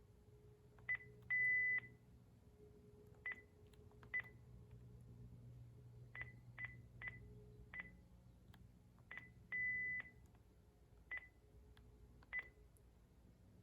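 Panasonic KX-TG5432M cordless phone handset giving single high key-press beeps as its buttons are pressed through the settings menu: about ten short beeps at irregular intervals and two longer half-second beeps, near the start and about ten seconds in.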